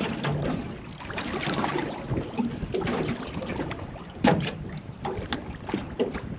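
Choppy sea slapping and lapping against a small boat's hull, with wind on the microphone. A few sharper slaps or knocks stand out, the loudest about four seconds in.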